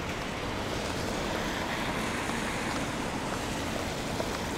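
Steady city street noise on wet streets in the rain: an even hiss of traffic and tyres on wet pavement with no distinct events.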